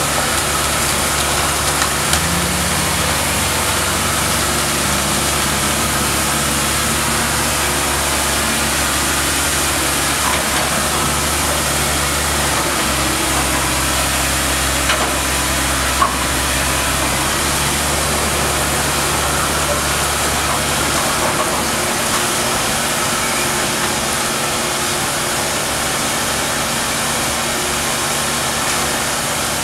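Komatsu PC160LC hydraulic excavator's diesel engine running under load, its note stepping up about two seconds in and shifting again around the middle as the hydraulics work the demolition pole, over a steady hiss. A few short sharp cracks of breaking debris, the loudest about halfway through.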